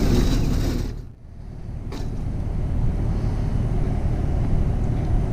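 Wind rumbling on the microphone, after a louder rush of noise that stops about a second in, with a single sharp click about two seconds in.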